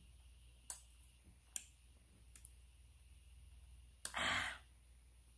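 Mouth sounds of eating with the fingers: three sharp, faint lip-smacking clicks about a second apart, then a short breathy exhale about four seconds in.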